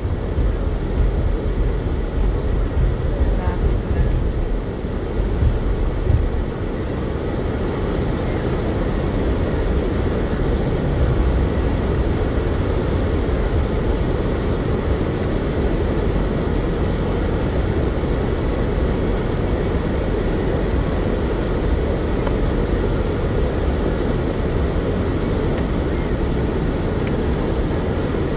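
Steady low rumble and hiss inside a car's cabin. It is uneven for the first six seconds or so, then holds level.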